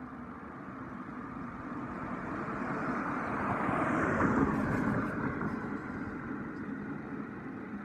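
A car driving past: its road noise swells to a peak about halfway through and then fades away.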